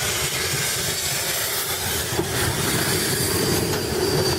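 Train running on the rails, a steady rolling rumble and rattle of wheels, with a thin high wheel squeal coming in near the end.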